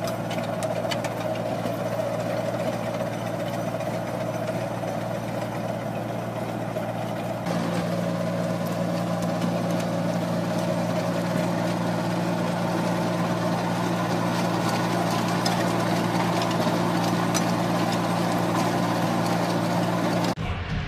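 Engine of a heavy farm machine running steadily at an even speed. It gets a little louder about seven and a half seconds in and cuts off just before the end.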